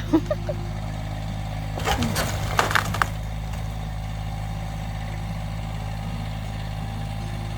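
Old log cabin timbers cracking and breaking in a quick cluster of sharp snaps about two seconds in, over a steady engine hum.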